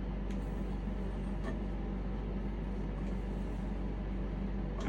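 A steady low hum with a couple of faint clicks.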